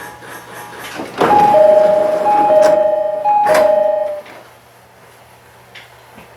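E501 series train door chime sounding three two-tone ding-dong pairs, high then low, about a second apart, over a rush of noise with a couple of sharp knocks.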